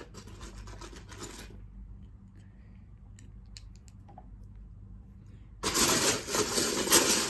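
Loose Lego bricks clattering as a hand rummages through a pile of pieces. The rattling stops about a second and a half in, leaving a few faint clicks while a piece is handled, then starts again louder near the end.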